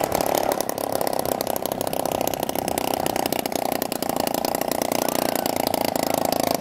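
A moped's small two-stroke engine running steadily, easing down to an idle as the moped pulls up and stops.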